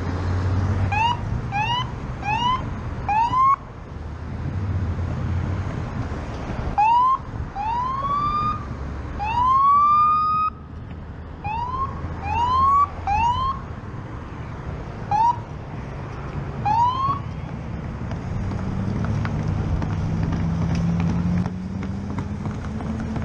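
Police siren sounded in short rising chirps, about a dozen in irregular groups, a few of them drawn out longer, over steady road and wind noise. A low rising engine note comes in near the end.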